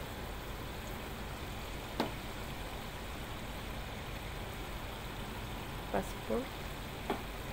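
Steady hiss of chicken and vegetables cooking in a pot on the stove, with one sharp light knock about two seconds in and a faint click near the end.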